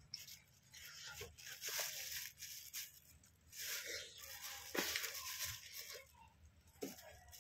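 Faint wet crunching and tearing of watermelon being sliced with a knife and bitten into, in several short spells.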